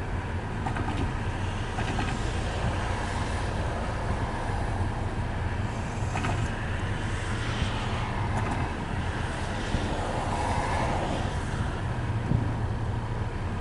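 Steady low rumble of idling engines and distant traffic, with wind noise.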